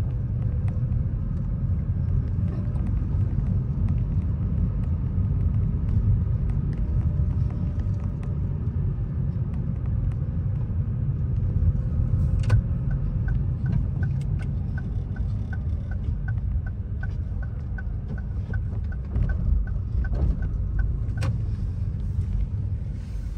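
Steady low road and engine rumble heard from inside a moving car's cabin. About halfway through, a click starts an even ticking, roughly twice a second, typical of a turn indicator, which stops shortly before the end.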